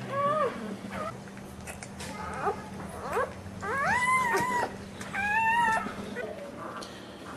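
Newborn pit bull puppies crying and squealing as they jostle to nurse: a string of short high cries, some rising in pitch, the longest and loudest about four seconds in and another about a second after it.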